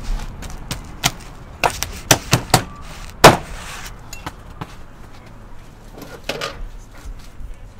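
A blade cutting into a whole roast pig's crisp, crackled skin: a run of sharp cracks and crunches over the first few seconds, the loudest about three seconds in, then only a few faint ones.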